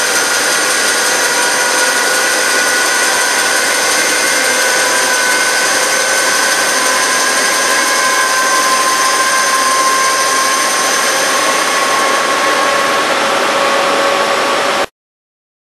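Dry high-speed turning of Inconel 718 with an SX7 SiAlON ceramic insert on a lathe: a loud, steady cutting hiss with several whining tones that creep slightly higher in pitch. It stops abruptly near the end.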